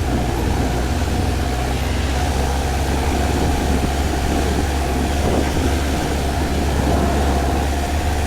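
4x4 vehicle's engine running steadily under way, a continuous low hum with driving noise.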